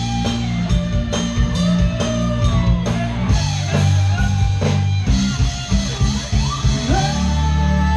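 Live rock band playing: electric guitar over bass and a drum kit, with a steady beat.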